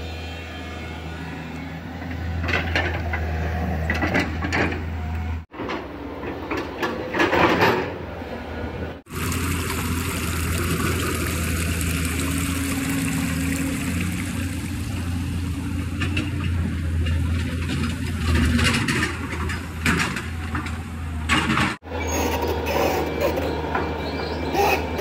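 Hydraulic excavators' diesel engines running with a steady low hum, with short scraping and knocking strikes as the bucket digs into soil. Across a long middle stretch, water pours over rocks into a muddy pit with a dense, even splashing hiss, over the engine hum.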